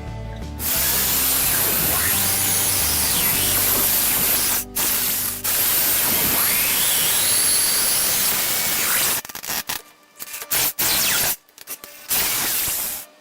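A power tool running in long pulls with two brief stops, then switched on and off in a series of short bursts near the end.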